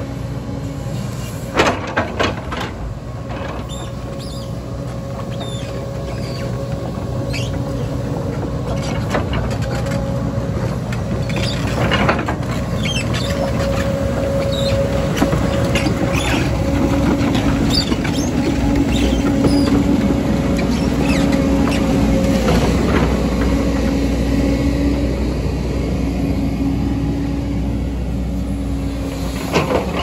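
JCB tracked excavator's diesel engine running under load, with a steady hydraulic whine that grows louder in the middle. Scattered knocks and clatter of rock and steel come from the bucket and tracks working the landslide debris.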